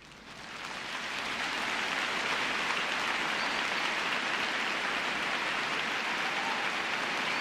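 A steady, rain-like hiss that fades in over the first second or two and then holds level.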